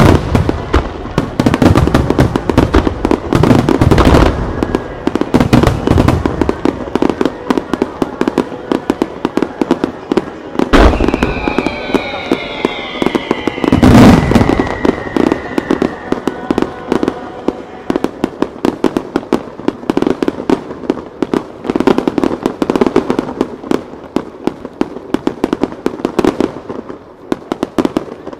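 Aerial fireworks shells bursting in rapid volleys with dense crackling and a few heavy booms. Falling whistles sound in the middle. The bursts thin out toward the end.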